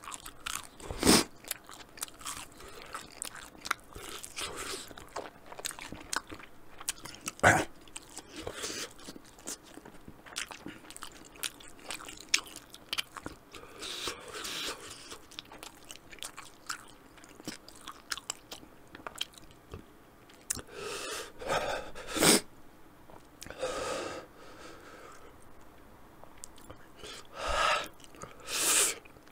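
A person chewing and biting a hot-sauce-drenched chicken wing close to a microphone, with wet mouth clicks and a few loud smacks about a second in, near a quarter of the way through and about three quarters through. Several short breathy bursts come in the second half.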